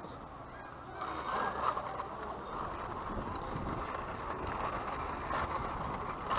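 Plastic wheels of a toddler's push-handle tricycle rolling over a paved path, starting about a second in.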